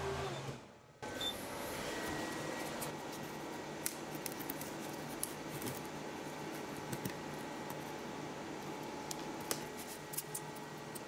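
Laser-cut corrugated cardboard handled by hand: scattered small clicks and rustles as the cut-out shapes are pushed out of the sheet. A steady machine hum stops about half a second in.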